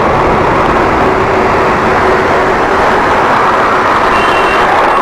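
Wind and road noise on a moving motorcycle, a steady rush with the engine running underneath; the low rumble thins near the end as the bike slows.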